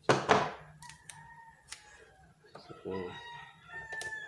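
A short loud rasp of electrical tape pulled off the roll, then a rooster crowing twice.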